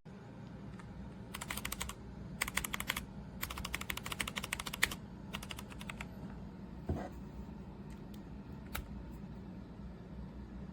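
Typing on a Redragon K556 mechanical keyboard with brown switches: four quick runs of key clacks in the first six seconds, then a couple of single key presses.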